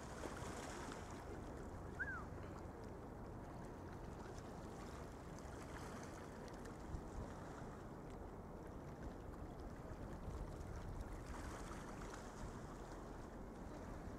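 Faint, steady rushing outdoor ambience of a riverfront at night, with one short falling chirp about two seconds in.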